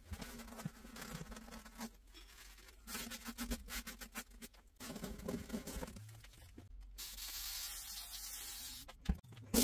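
Paper towel rubbing and scraping crumbs across the bottom of a wooden drawer, in uneven strokes. Near the end, cleaner sprayed into the drawer hisses for about two seconds.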